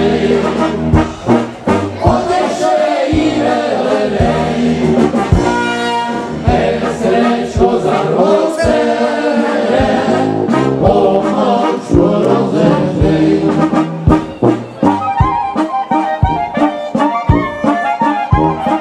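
Live brass band music through a PA, with trombone and trumpet over a steady, regular bass beat. The sound of the band changes about three-quarters of the way through.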